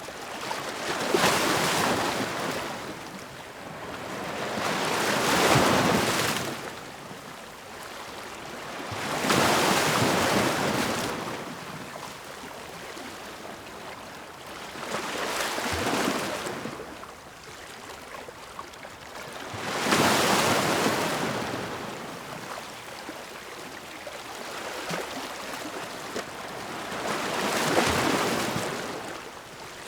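Ocean waves breaking one after another, about six in all, each swelling to a loud rush of surf and then washing away.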